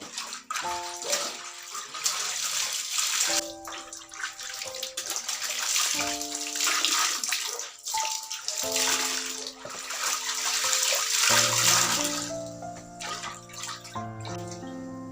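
Running water pouring and splashing steadily, easing off near the end, over a melodic background music track.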